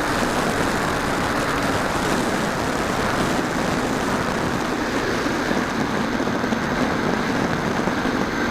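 Radio-controlled model aircraft in flight: its motor and propeller run steadily under a dense rushing of wind over the onboard microphone, with a faint low hum.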